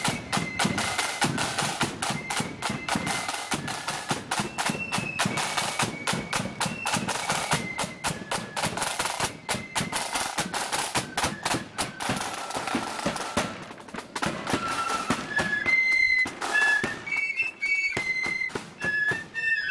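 Marching flute band playing: rapid drumming under the flutes' melody. About fourteen seconds in, the drumming thins out and the flutes carry the tune more clearly.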